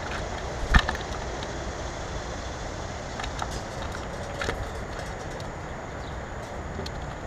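Steady low outdoor rumble, with a single sharp knock about a second in and a few faint, short high chirps.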